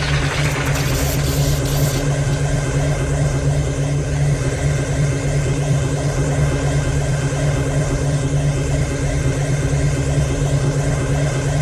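Science-fiction thermal lance sound effect cutting through a lock: a steady low electric drone. A hiss over it stops about two seconds in.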